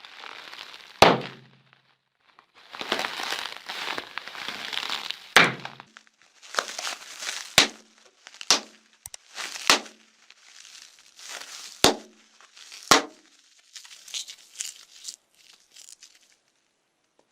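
Slime being handled and squeezed, crackling in stretches and giving a series of sharp pops, about eight or nine in all, as air pockets burst.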